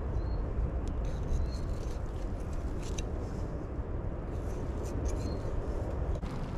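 Knife and hands skinning a goat's foreleg, with scattered soft clicks and scrapes, over a steady low rumble. A few faint high chirps come and go.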